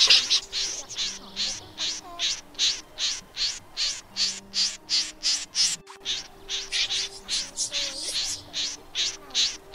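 Common snipe calling: a rapid, even series of short, sharp, high calls, about three a second, with a brief break about halfway through.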